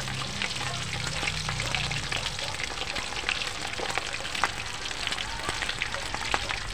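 Pork leg deep-frying in hot oil in a wok: a steady sizzle with frequent sharp crackles and pops as the oil spatters.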